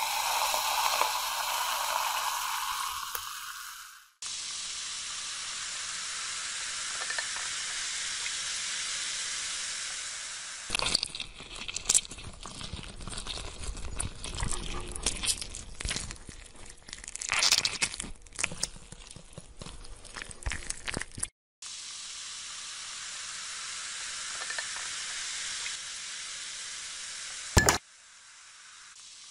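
Eno fruit salt poured into a beaker of liquid and fizzing with a steady hiss. For a stretch in the middle, the screw handle of a brass cylinder is turned above the beaker with irregular clicks and rattles, and near the end there is one sharp click.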